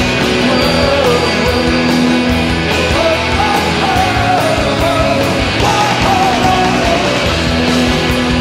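Rock music with a steady beat: a dense band mix with guitars and drums.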